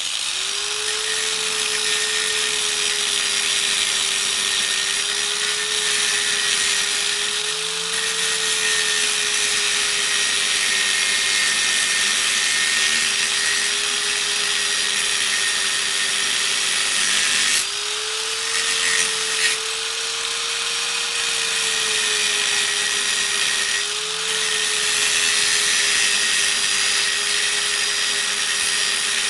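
Angle grinder cutting into the steel base and weld of a microwave oven transformer. A loud, steady motor whine with harsh grinding hiss starts suddenly, its pitch wavering slightly and shifting briefly a couple of times.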